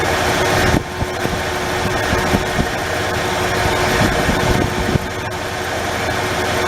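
Ford 4.9L inline-six engine idling steadily. The engine has an intermittent misfire: the number 3 cylinder sometimes gets no spark.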